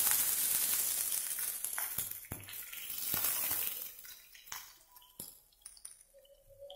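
Sliced onions sizzling in hot oil in a wok just after being added, the sizzle loud at first and dying down about four seconds in. Several light clinks and taps are scattered through it.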